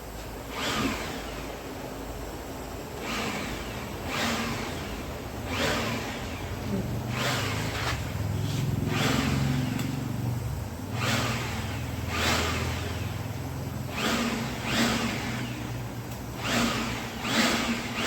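Homemade LPG-fired turbojet rig running: a steady low hum from its blower, overlaid by about a dozen short rushing surges, each under a second, coming every one to two seconds.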